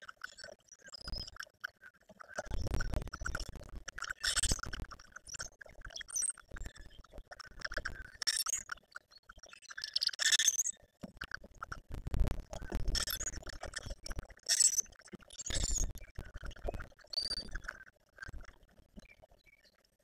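Grackles feeding at crowded bird feeders: irregular clinks, taps and clicks of beaks and feet on the feeders and spilled seed, with the flutter of wings as birds land and take off.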